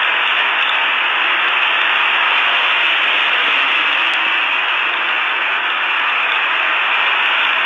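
Steady, even hiss like radio static, with no engine note, impacts or other distinct sounds in it.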